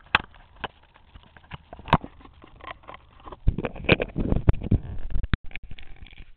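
Handling noise from a camera being moved and fixed in place, close to its microphone: scattered clicks and knocks, then a dense stretch of rubbing and bumping about halfway through that ends in a sharp click.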